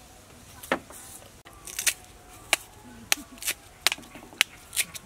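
Large knife chopping into a peeled green mango held in the hand, shredding it for salad: about ten crisp, sharp cuts at an irregular pace.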